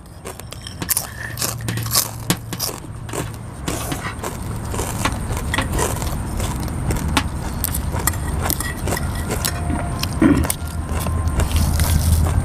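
Close-up eating sounds: crunching of raw leafy vegetables, slurping of rice noodles and chewing, with many small clicks of chopsticks and a spoon against a glass bowl. A low steady rumble builds up toward the end.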